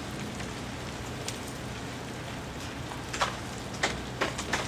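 Ice breaking off thawing, ice-glazed tree branches and raining down: a steady patter like rain, with several louder sharp clatters in the last second and a half.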